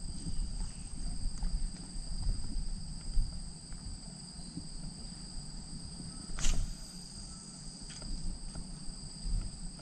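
Steady outdoor insect chorus, a continuous high buzz at two pitches, over a low rumble. One sharp click about six and a half seconds in.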